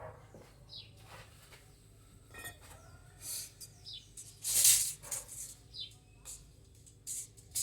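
A small bird chirping now and then in short, falling high notes, over a few brief scratchy rustling noises; the loudest comes about four and a half seconds in.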